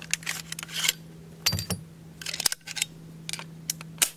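An AR-15 rifle being taken apart by gloved hands: a string of sharp metal clicks and clacks as the upper and lower are separated and the bolt carrier group is pulled out and laid down, with short rustles of the gloves in between.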